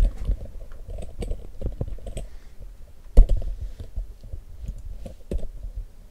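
Irregular clicking and tapping of computer keyboard and mouse use, with a heavier knock about three seconds in.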